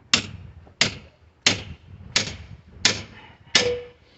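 Mini sledgehammer striking a crowbar to drive it between pallet boards: six even, ringing metal-on-metal blows about 0.7 s apart.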